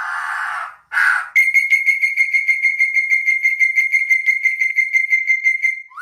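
A bird calling: two short harsh notes, then a long, even trill on one high pitch, about eight pulses a second, lasting some four and a half seconds.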